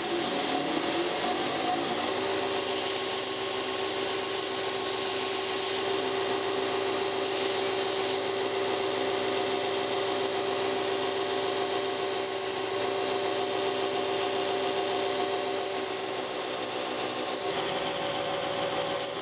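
Knife-making belt grinder starting up: its motor rises in pitch over the first couple of seconds, then runs steadily with the abrasive belt running over the contact wheel. Near the end a high-carbon spring-steel blade is ground against the belt.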